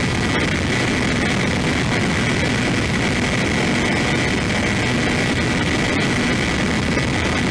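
Multiplex Easy Star RC plane in flight, heard from its onboard camera: the electric motor and propeller give a steady high whine over a constant rough rush of wind and airframe vibration.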